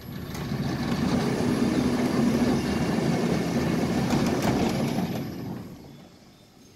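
PPA Jetflex sliding gate operator running: its electric motor and pinion drive the steel sliding gate open along a one-piece rack, with the gate rolling on its track. The running noise builds up at the start, holds steady, and fades out about five to six seconds in as the gate reaches its open position.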